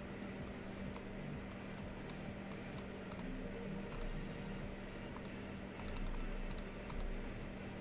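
Light, irregular clicking of computer keyboard keys over a steady low electrical hum.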